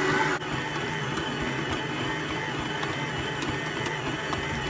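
Electric stand mixer running steadily, kneading bread dough in its steel bowl. The sound drops a little in level about half a second in.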